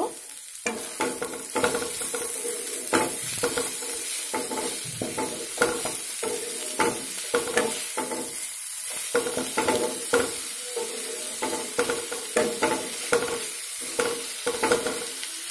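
Wooden spatula stirring and scraping shredded cabbage, potato and peas around a dark non-stick pan, roughly two strokes a second, over the sizzle of the vegetables frying. The strokes are mixing freshly added salt and sugar into the cabbage curry.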